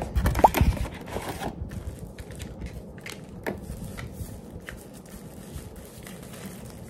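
Items and packaging being handled: a few low thumps about half a second in, then soft rustling and crinkling with scattered small clicks.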